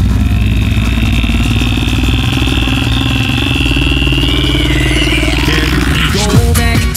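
Beatboxer's sustained vocal drone into a cupped handheld microphone: a steady low buzzing bass with a high whistling tone held above it. About five seconds in the high tone slides down and the drone breaks into a beatboxed groove.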